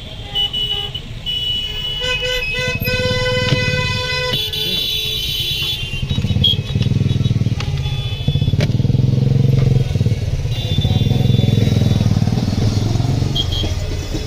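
Street traffic with a motorcycle engine running close by, growing louder in the second half. A vehicle horn honks for about two seconds, starting about two seconds in.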